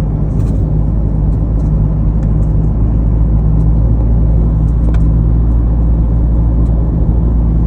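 A vehicle engine running at a steady speed: a loud, even low drone with a few faint ticks over it.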